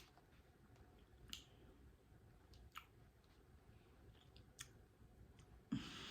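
Near silence broken by a few faint mouth clicks from eating, then a louder breath near the end.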